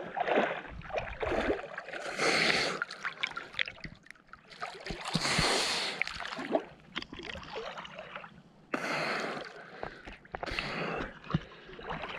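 Water splashing and sloshing from a swimmer's backstroke arm strokes, close to a waterproof camera at the water's surface, coming in bursts a second or two apart, with hard breaths from the swimmer in the icy water.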